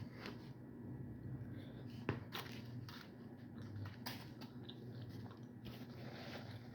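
A person eating chicken pasta: faint chewing with a few short sharp clicks, the loudest about two seconds in.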